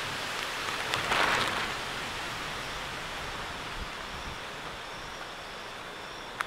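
Steady hiss of heavy rain falling during a thunderstorm, with a brief louder rush about a second in and one sharp click near the end.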